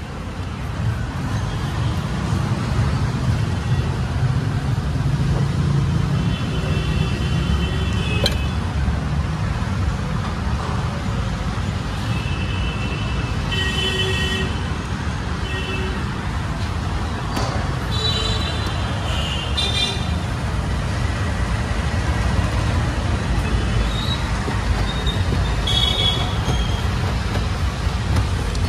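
Road traffic rumbling past, with vehicle horns honking in short toots every few seconds.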